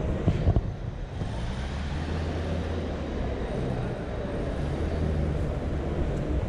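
A vehicle engine running steadily, a low rumble, with a couple of sharp knocks about half a second in.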